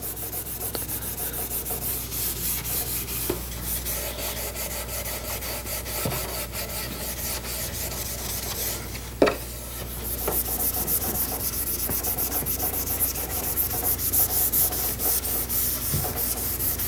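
Red Scotch-Brite abrasive pad rubbed by hand over a wooden chair frame's cured urethane finish in rapid back-and-forth strokes, scuffing the surface dull before the final coat. The rubbing breaks off briefly with a single knock about nine seconds in.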